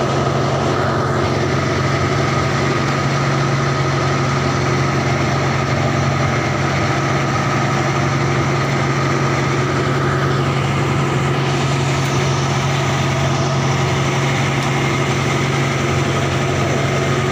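Fishing boat's engine running steadily, a constant low hum that keeps the same pace throughout.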